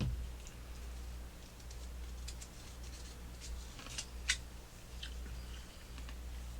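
Scattered small clicks and scrapes of handling, the sharpest a click about four seconds in, over a low steady hum.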